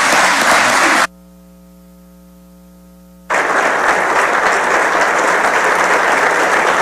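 Audience applauding. The clapping breaks off about a second in, leaving a quieter steady electrical hum for about two seconds, then the applause resumes.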